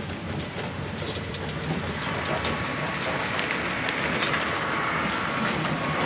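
Open-sided shuttle cart driving along a road: steady tyre and road noise with many small rattles and clicks from the cart's body and seats, and a faint high whine joining about halfway.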